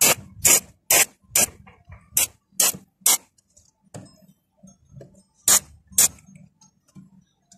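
Short squirts from an aerosol can of cleaner sprayed onto a dirty, carbon-fouled throttle body: seven quick hissing bursts, then two more after a pause of about two seconds.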